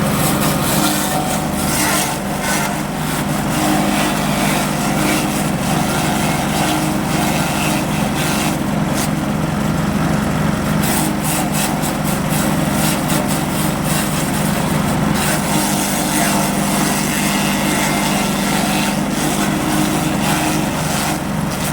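Engine-driven grass chopper running steadily at a constant speed during a test run, a continuous engine drone with an irregular crackle over it.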